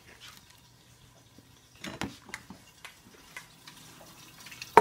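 A few light, irregular clicks and knocks of cookware and utensils being handled at the stove, over a faint steady hum.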